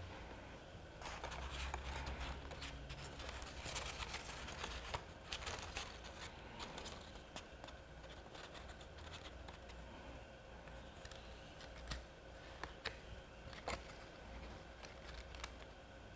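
Faint rustling, scraping and small clicks of stiff card paper being handled and its glued tabs fitted and pressed together by hand, busiest in the first few seconds.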